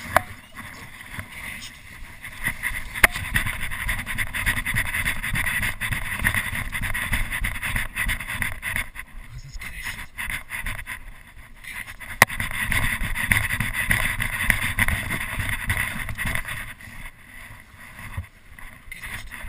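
Rustling and rumbling noise on a body-worn camera as its wearer walks along a city street, loudest in two stretches, with two sharp clicks about three and twelve seconds in.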